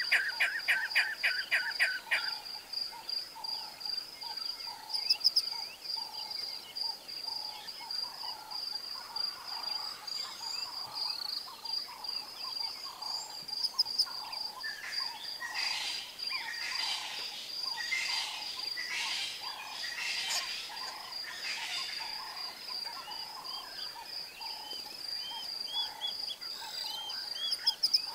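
Bushveld ambience: a steady high insect trill, with a fast run of repeated calls in the first two seconds and a series of bird calls about halfway through.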